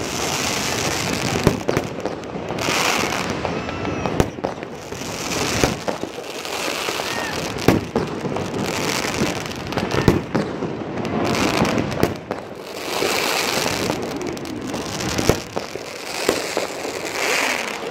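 Many fireworks and firecrackers going off across a city: an irregular run of sharp bangs over constant crackling, with a few short whistles.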